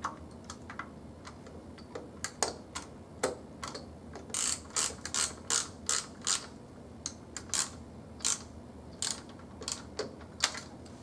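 Ratchet wrench clicking in short runs as the battery terminal nuts are tightened, with a steadier run of louder clicks, about two to three a second, a little under halfway in.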